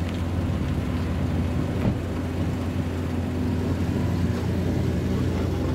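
Steady low engine rumble with a constant hum, unbroken throughout.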